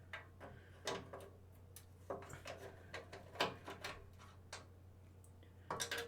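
Scattered light metallic clicks and knocks of a 10 mm socket wrench being fitted to and worked on a computer's monitor mounting bolts, over a low steady hum.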